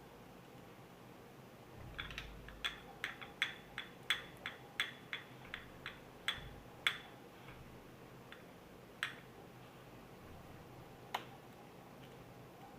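A quick, uneven run of about fifteen sharp clicks over some five seconds, then two more single clicks, as a washing machine tap adapter is handled and fitted.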